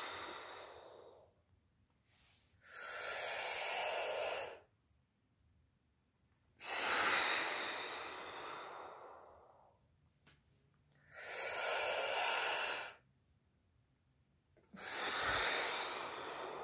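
A woman breathing deeply and audibly through the mouth in a paced breath-work exercise. Each breath lasts two to three seconds, with short silent pauses between, about one every four seconds.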